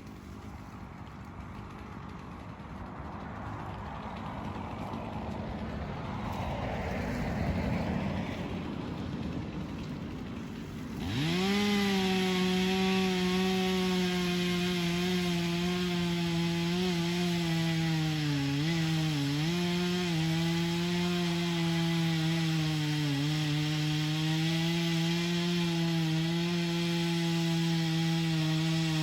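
Two-stroke chainsaw: a quieter, rougher sound for about the first ten seconds, then the engine goes to full throttle about eleven seconds in and runs steady and high. It is cutting into an ash trunk for a hinge cut, and the pitch sags briefly twice as the saw takes load in the wood.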